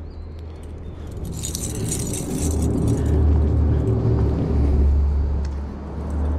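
Low rumble of a vehicle crossing the bridge overhead, swelling for a few seconds and then easing off. About a second in there is a brief spell of light metallic clinking.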